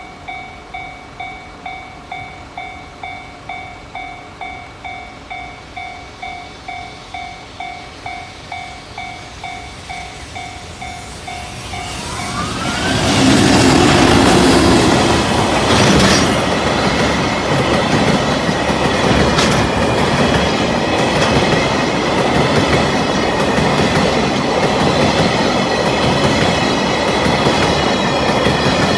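Japanese level-crossing warning bell ringing about twice a second. A little under halfway through, an EH200 electric locomotive hauling a freight train of Taki tank wagons arrives and drowns out the bell with a loud rumble. The wagons keep rolling past, their wheels clattering over the rail joints.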